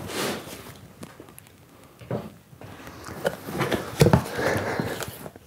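Cardboard box flaps being pulled open and clothing rustling as it is handled inside the box, with a sharp knock about four seconds in.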